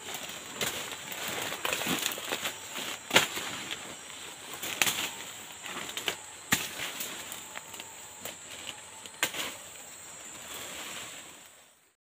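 Footsteps crunching through dry leaf litter and brushing through undergrowth, with sharp snaps of twigs at irregular intervals, over a steady high insect drone. The sound fades out near the end.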